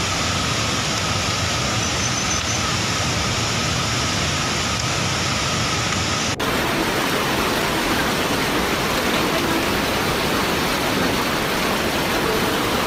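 Fast-flowing floodwater torrent rushing: a steady, heavy noise of churning water that changes abruptly about six seconds in.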